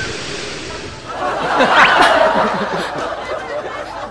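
Studio audience laughing. The laughter swells about a second in and eases off toward the end.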